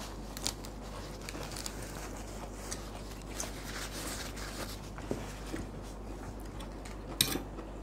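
Quiet mealtime sounds: chewing, a paper tissue rustling, and light clicks of a spoon on plates, with one sharper clink near the end.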